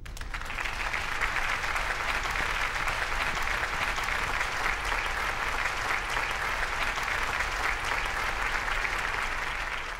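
A crowd applauding: dense, even clapping that starts abruptly and holds steady.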